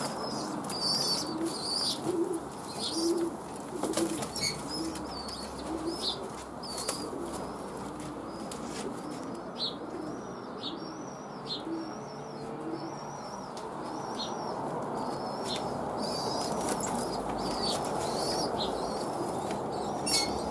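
Young pigeons (squeakers) peeping over and over in high, arching chirps, about two a second, with low cooing notes repeating through the first half.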